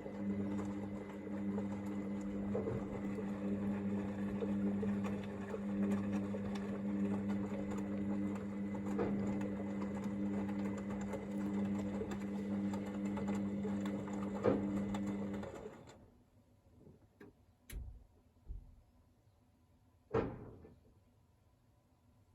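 Hoover VisionDynamic washing machine running mid-programme with a steady electrical hum and a noisy wash. It cuts out about fifteen seconds in, followed by a few clicks and a thump from the machine.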